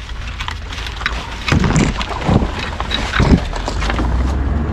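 Narrowboat's engine running with a steady low hum while wind buffets the microphone in rough gusts between about one and a half and three and a half seconds in.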